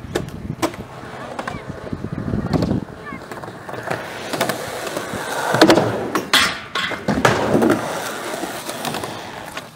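Skateboard wheels rolling on smooth concrete, broken by several sharp clacks of the board hitting the ground and ledge during tricks. The loudest clacks come about halfway through.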